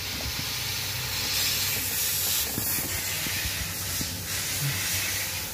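A steady hiss with a few faint clicks.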